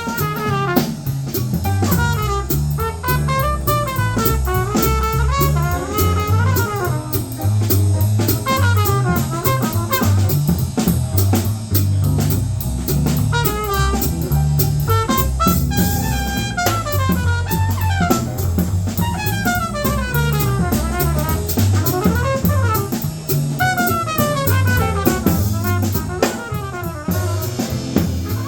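Small-group jazz: an alto saxophone plays fast runs that sweep up and down, over a drum kit with busy cymbal and drum strokes and a steady low line underneath.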